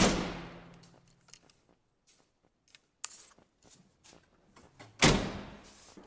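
Two loud slams of the Chevrolet Express van's doors, about five seconds apart, each ringing out with a long echo in the garage, with a lighter click about three seconds in.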